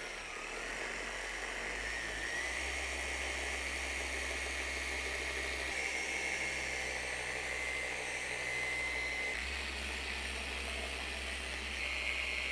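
Flex XC3401 forced-rotation dual-action polisher running with a heavy cutting pad and compound on automotive paint, buffing out scuffs: a steady motor whine over a low hum, the pitch shifting slightly a couple of times as pressure on the pad changes.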